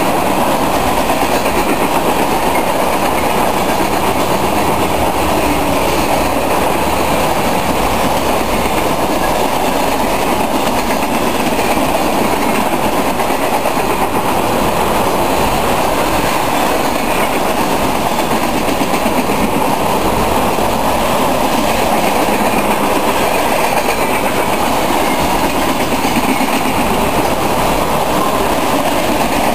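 Freight train cars rolling past at speed, with steady, unbroken wheel-and-rail noise.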